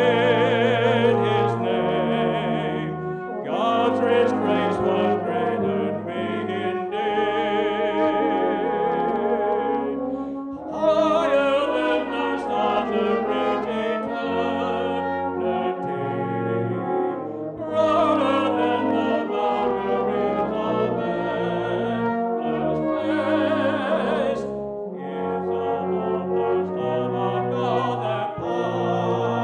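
A small brass band of cornets and lower brass plays a slow hymn tune in sustained chords, with phrases changing every second or two and short breaths between them.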